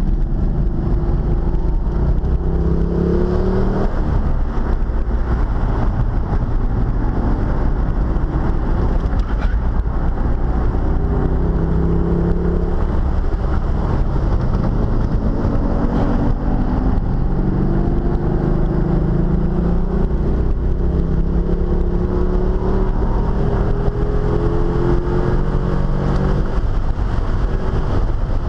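Car engine with a new aftermarket cam, heard from inside the cabin at track speed, pulling up through the revs and easing off again several times, with one long climbing pull in the second half.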